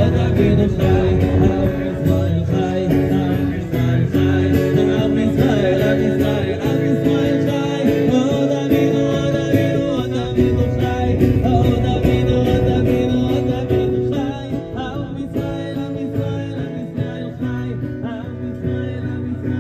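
Live acoustic guitar strummed with voices singing, a sing-along song; it gets a little softer in the last few seconds.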